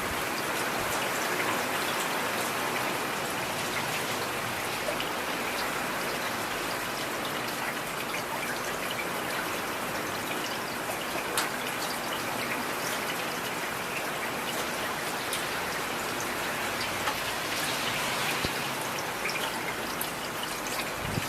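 Heavy rain falling steadily, a dense even hiss with individual drop impacts ticking through it.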